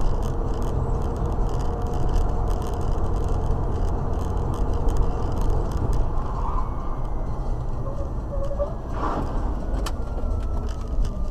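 Steady low rumble of road and engine noise heard inside a moving car at highway speed, with a short rush of noise about nine seconds in and a sharp click just after.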